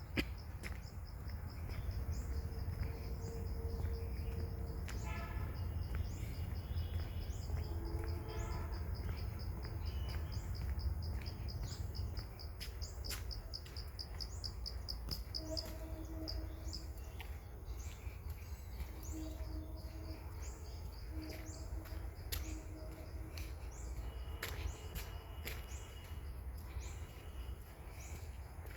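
Outdoor nature ambience: an insect keeps up a steady high, rapidly pulsing trill for about the first half, while birds give repeated short high chirps throughout over a constant low background rumble.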